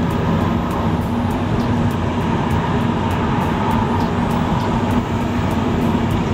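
Steady road and engine noise inside a car driving on a freeway: an even rumble of tyres and engine with a constant low hum.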